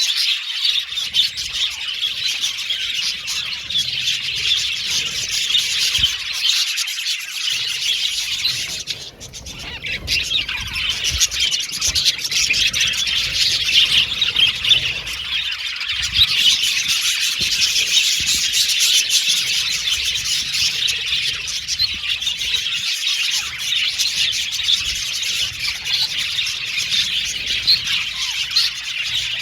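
A flock of budgerigars (budgies) chirping and warbling all at once, a dense, unbroken chatter of many birds, with a brief lull about nine seconds in.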